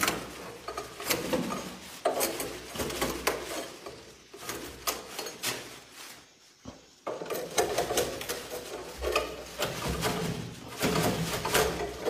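A long nest-harvesting pole knocking and scraping against wooden ceiling rafters as swiftlet nests are pried off, making a string of irregular clatters with a brief lull midway.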